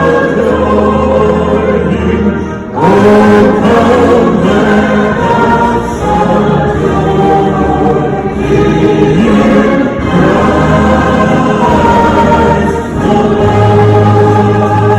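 Large crowd of voices singing a Christmas carol together with a concert band, in long held phrases with short breaks between them.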